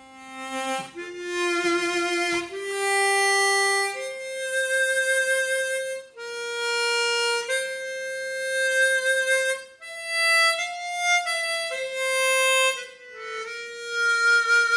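Easttop EAP Performer 16-hole chromatic harmonica, airtightened and fitted with its stock covers, played as a melody of held notes with a few short breaks.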